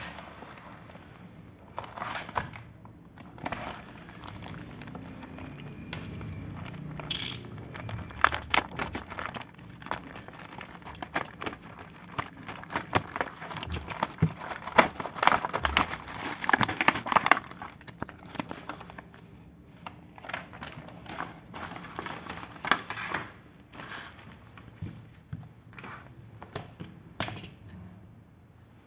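Plastic packaging crinkling and tearing as a courier mailer bag and a plastic product pack are pulled open by hand, in irregular crackles that are densest about halfway through.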